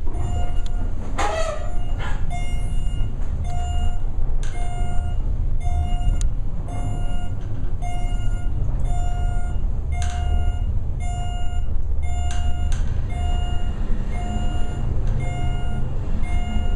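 Service elevator car travelling, a steady low rumble. Over it a beep repeats about twice a second, and a few sharp clicks come through.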